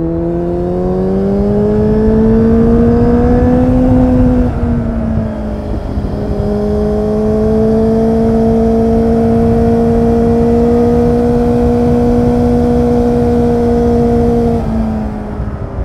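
Kawasaki Z800's inline-four through an Akrapovic exhaust, heard from the rider's seat under way. The engine note climbs under throttle for about four seconds and dips briefly. It then holds a steady note until the throttle closes near the end and the pitch falls, with a rush of wind underneath throughout.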